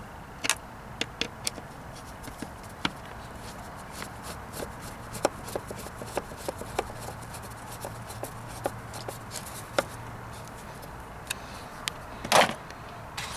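Irregular light clicks and taps of hand tools and fittings as bolts are screwed back in during reassembly of a car's headlight, with one louder knock near the end.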